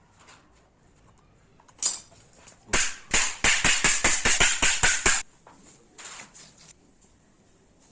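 A fast run of about a dozen sharp hammer blows, roughly five a second, with a single blow shortly before and a few lighter taps after.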